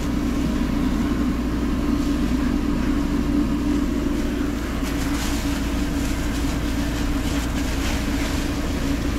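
A steady mechanical drone: a machine running with a constant low hum that does not change.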